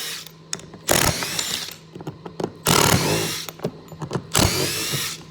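Makita XDT13 18-volt brushless impact driver hammering in three short bursts of under a second each, working 3-inch star-drive wood screws in 2x4 lumber.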